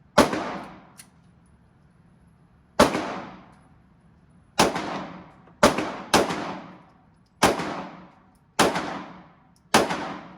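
Eight single gunshots fired at an uneven pace, each a sharp crack followed by about a second of echoing decay.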